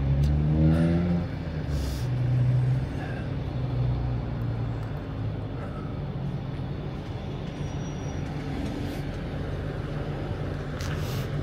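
Flatbed tow truck's engine running, rising in pitch over the first second, then settling to a steady idle. Two short hisses, about two seconds in and near the end.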